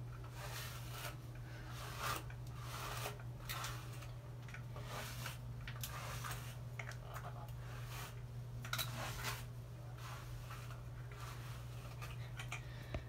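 A hairbrush pulled through long hair in a series of short, irregular rustling strokes, about one or two a second, over a steady low hum.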